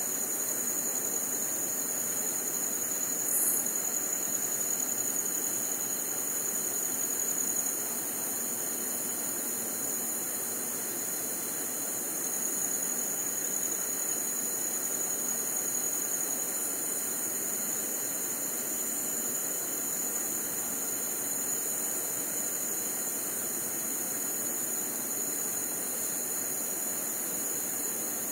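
Steady chorus of crickets, a continuous high trill, over a constant even rushing noise, with one brief tick about three seconds in.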